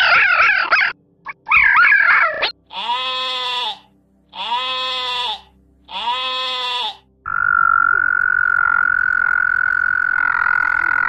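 A red fox's wavering, high-pitched cries, two of them, then three sheep bleats of about a second each, evenly spaced. From about seven seconds in, a frog calls with one steady, unbroken note.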